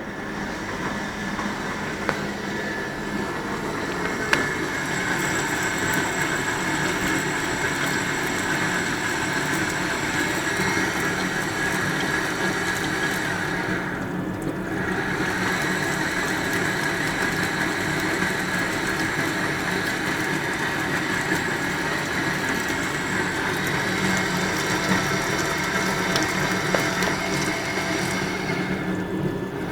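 Electrical discharge (EDM) machine running in normal operation: a steady, dense hiss of sparking over lower machine noise, with a few sharp clicks. The high hiss drops away briefly about halfway through and again near the end.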